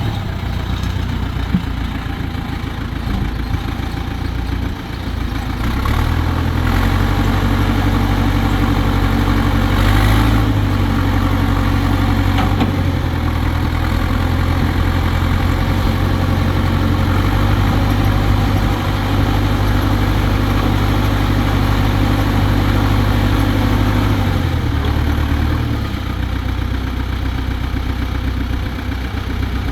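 Massey Ferguson 750 backhoe loader's diesel engine running. Its engine speed rises about six seconds in, shifts a little a few times, and drops back near the end.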